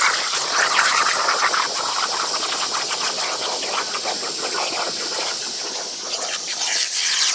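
CNC plasma cutter torch cutting through steel plate: a loud, steady hiss with a crackling arc. It starts suddenly right at the outset, just after a brief quiet gap.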